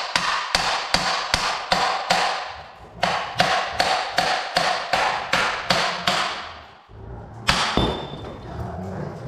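Repeated hammer blows on steel, about three a second with a metallic ring, on a car's rear wheel hub to work the wheel bearing free. There is a short pause partway through, the run stops, and one heavy blow comes near the end.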